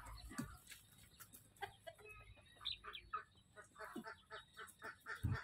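Domestic poultry giving many short calls in quick succession, faint and irregular.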